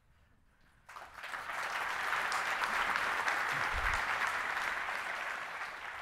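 Audience applauding, swelling in about a second in after a brief hush.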